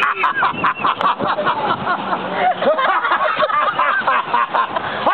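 A man giving an exaggerated, cackling clown's laugh: a quick, unbroken string of rising and falling hoots.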